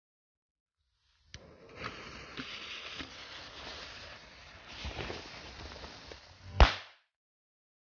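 Firecracker (a Blackboxx Bella Bomba) fuse hissing and sputtering with small crackles for about five seconds, then going off in one sharp, loud bang.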